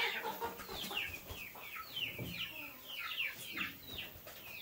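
Birds calling: a steady run of short, falling chirps, several a second.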